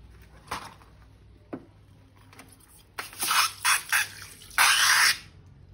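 Slime squelching and splatting as it is squeezed out and handled: a few short wet sounds, a quick cluster of them about three seconds in, and a longer one near the end.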